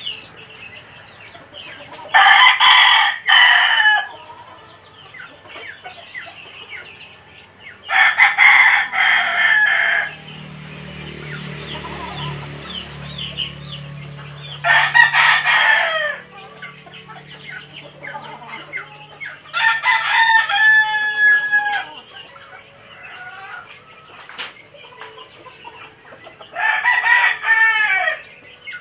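Roosters crowing: five long crows, each lasting about two seconds, coming roughly every six seconds.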